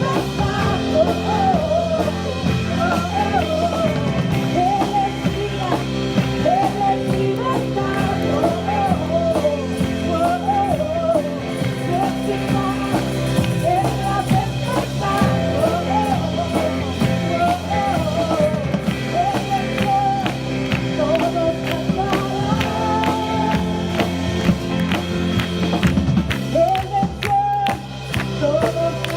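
Rock-style song playing, with a singing voice over guitar and other instruments.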